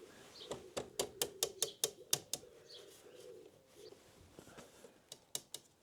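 Light, quick metal clicks, about eight in two seconds and a few more near the end: a newly fitted metal radiator guard on a BMW R1250GSA rattling against its mount as it is knocked, a little rattle from a guard that has not been padded with tape.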